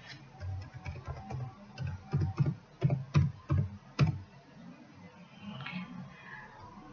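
Typing on a computer keyboard: a run of irregular key clicks, the heaviest strokes between about two and four seconds in, then it stops.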